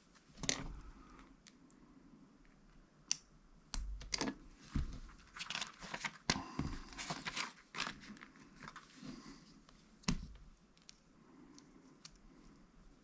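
Small plastic Lego parts being handled and pressed together while a minifigure is assembled: scattered clicks and rustling, with a few sharper clicks.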